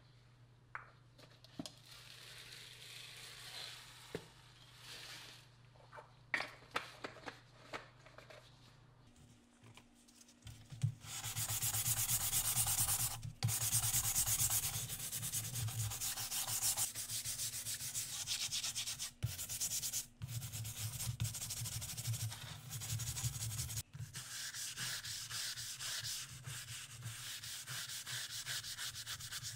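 A stiff-bristle scrubbing brush scrubs plastic keyboard case parts in soapy water in a stainless steel tray, with rapid back-and-forth strokes. The scrubbing starts about a third of the way in and is loud and steady. Before it there are only a few faint clicks and knocks.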